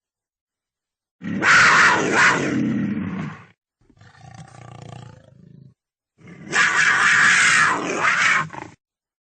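Cougar calling: two loud, harsh calls of about two seconds each, separated by a quieter, lower sound. Each is cut off abruptly into dead silence.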